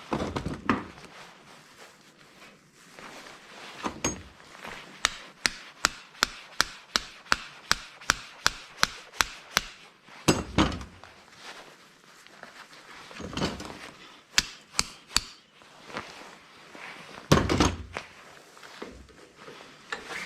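Hammer blows on scrap: a quick, even run of about fourteen strikes at roughly three a second, with scattered heavier thuds and clatter before and after.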